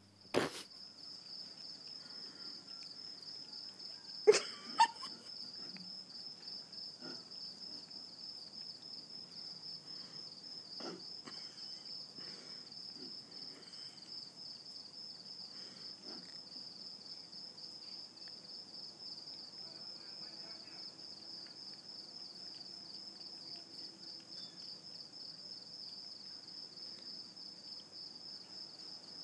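Steady, high, pulsing chirring of crickets. Two sharp knocks about half a second apart come some four seconds in.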